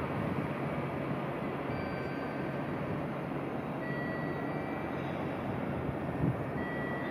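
JR Central 315 series electric train rolling slowly into a station platform. Its running noise is steady, with faint high whining tones coming and going.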